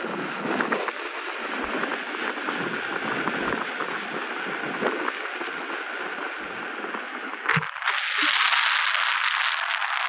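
Inmotion V12 electric unicycle rolling along asphalt: tyre road noise mixed with wind rush. About eight seconds in it turns to a brighter, higher hiss.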